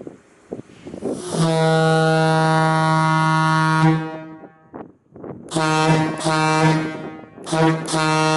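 Leslie A200 air horn blowing one steady note: a long blast of about two and a half seconds, then after a pause two shorter blasts, each with a brief stutter in it.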